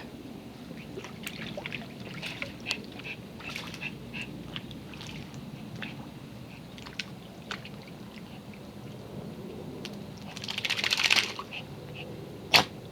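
Small dog dunking her head in pool water: light sloshing and small splashes. About ten seconds in there is a rapid, second-long snort, and near the end one sharp sneeze.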